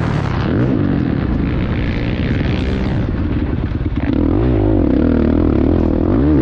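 Motocross dirt bike engine at speed. It runs lower and quieter at first, then the throttle opens about four seconds in and the engine note rises and falls as the bike drives out of the turn onto the straight.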